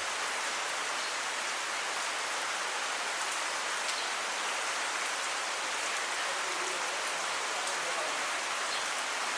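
Steady monsoon rain: an even hiss of falling rain with faint scattered drop ticks.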